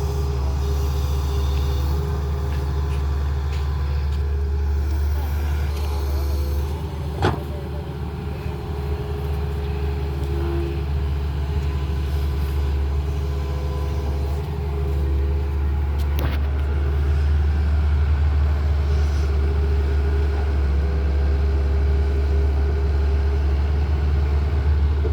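Tata Hitachi excavator's diesel engine running steadily under heavy work, with a sharp knock about seven seconds in and another about sixteen seconds in.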